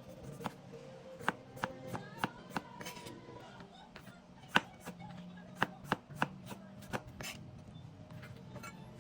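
Knife chopping vegetables on a cutting board in quick, irregular strokes, with the sharpest strike about halfway through. Soft background music plays underneath.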